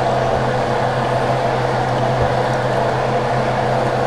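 Gas cooking burner running steadily under the pot: a constant rushing noise with a low hum.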